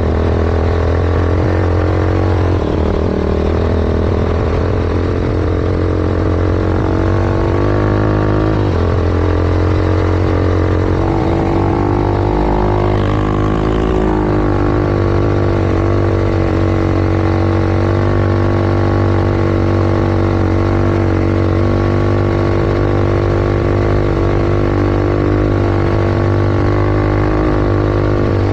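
Yamaha YFZ450 quad's single-cylinder four-stroke engine, big-bored to 501cc, running loud through a sport exhaust while riding. Engine speed holds fairly steady, with dips and rises around the middle.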